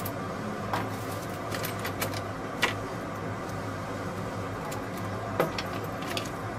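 Unpacking handling noises from a brazing torch kit: a plastic bag crinkling, and brass hose fittings and metal torch parts clicking and knocking against a cardboard box and a wooden bench. A few sharp knocks stand out, about two and a half and five and a half seconds in, over a steady low hum.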